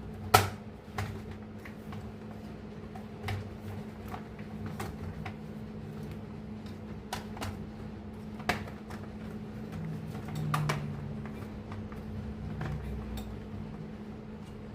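Scattered clicks and knocks of printer parts being handled during servicing, over a steady low hum. The loudest click comes just under half a second in, with another sharp one about two-thirds of the way through.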